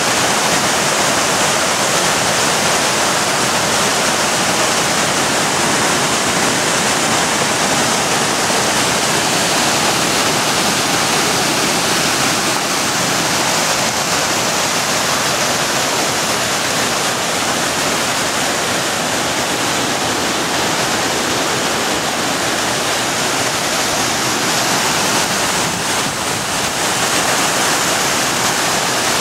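Roaring River's white water cascading steeply over a jumble of boulders at the Alluvial Fan waterfall: a loud, steady rush of water close to the microphone.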